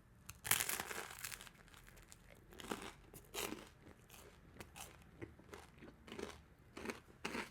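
A person chewing crunchy food, with the loudest crunching about half a second in and softer, irregular chewing after.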